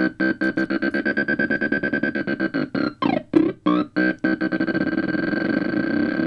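Homemade light-controlled oscillator sound machine (phototheremin): a high-pitched electronic tone chopped into rapid pulses by two low-frequency oscillators, shifting as fingers shade its light sensors. About three seconds in the pitch glides down and the pulses stutter and break, then the pulsing speeds up and smooths out near the end.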